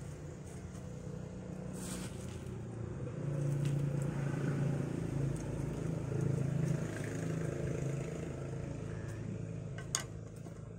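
A motor engine running, a steady low hum that grows louder for a few seconds and then eases off. A single sharp click near the end as a small hand tool is set down on the table.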